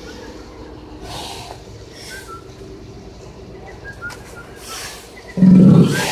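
Steller sea lion surfacing and exhaling hard: a loud, low blow with a hiss of spray lasting under a second, near the end. Faint short chirps and a few soft hissing puffs come before it.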